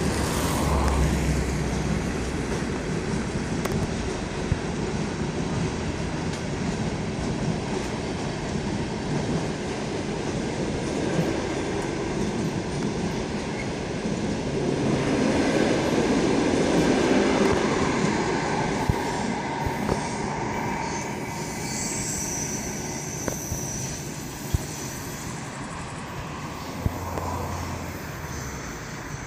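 Passenger train coaches rolling past on a curve: a steady rumble of wheels on rail with scattered sharp clacks at the rail joints and thin wheel squeal in places. The sound fades in the last several seconds as the tail of the train draws away.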